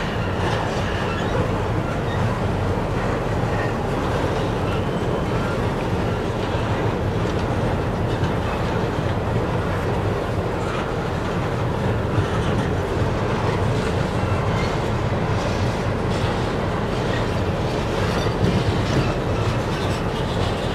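Covered hopper cars of a freight train rolling over a steel trestle: a steady rumble of steel wheels on rail with scattered clicks from the rail joints.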